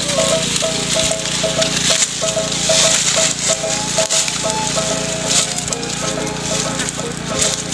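Dry mung bean stalks and pods rustling, crackling and snapping as they are picked by hand, with scattered sharp cracks. A rapid repeating short note runs steadily in the background.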